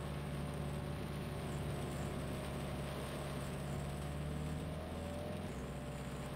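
A vehicle engine running steadily at low revs, a low hum whose note shifts about five seconds in, over a steady hiss of background noise.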